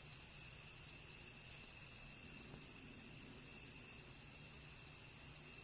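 Night chorus of crickets and other insects: a steady high-pitched trill, with a second, lower trill that stops and restarts a few times.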